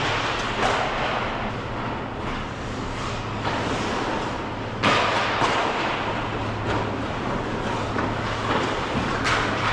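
Ice hockey play on a rink: skate blades scraping the ice and sticks and puck knocking, with a sharp loud impact about five seconds in, over a steady low hum.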